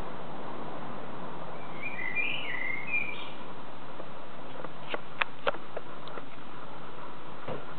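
Common (Eurasian) blackbird singing a short warbling phrase about two seconds in. A few sharp clicks follow around the fifth second, with another near the end, over a steady background hiss.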